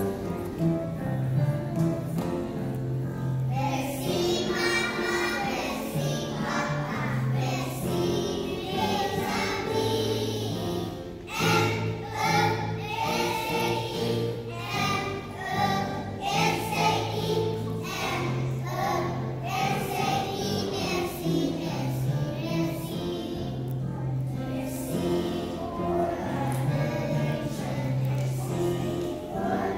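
A class of young children singing a song together over a recorded backing track with a repeating bass line.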